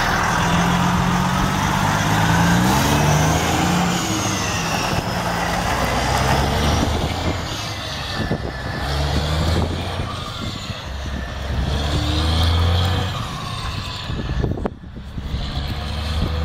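Detroit Diesel Series 60 12.7-litre straight-six turbo diesel of a Peterbilt 379 semi tractor pulling away and accelerating through the gears. The engine note climbs, then drops back at each shift, several times over.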